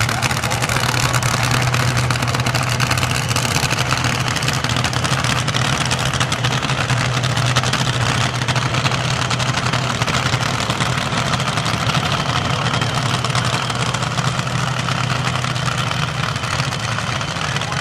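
Supercharged nitro-burning engine of a front-engine Top Fuel dragster idling loudly and steadily, with no revving.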